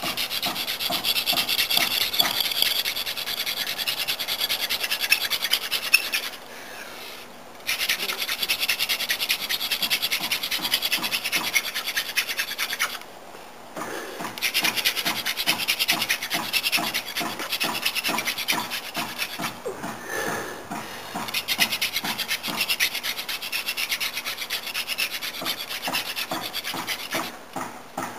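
Hand-drill friction fire: a sunflower-stalk spindle spun fast back and forth between the palms, its tip grinding into the hearth board with a rapid scratchy rubbing. It breaks off briefly twice, then picks up again. This is the drilling run that builds up a coal.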